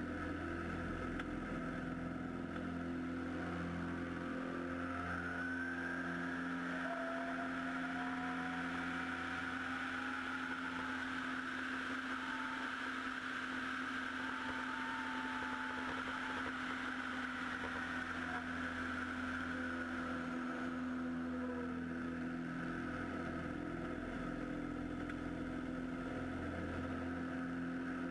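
Super Decathlon aerobatic plane's engine and propeller droning steadily in flight, heard from a camera on the wing with a rush of air over it. The rush grows stronger through the middle as the plane manoeuvres and eases near the end.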